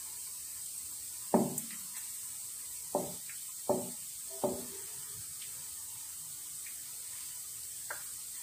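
A wooden spatula knocks against a nonstick frying pan five times at uneven intervals while stirring meat frying in oil, over a steady sizzle. The first knock is the loudest and the last is faint.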